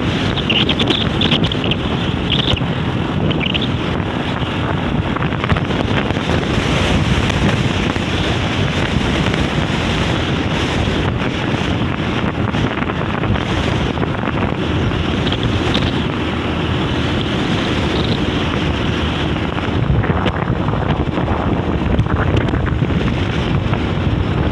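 Strong, steady wind blasting across the microphone on a sandy beach, strong enough to lift the sand into the air.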